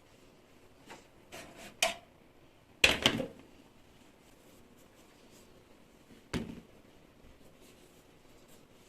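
Household items being handled and set down: a few short knocks and clatters, the loudest a cluster about three seconds in, with one more some three seconds later.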